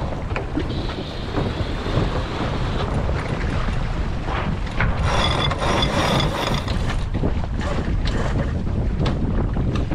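Wind buffeting the microphone and water rushing past the hull of a sailboat under way. About five seconds in, a brighter, louder rush lasts roughly two seconds.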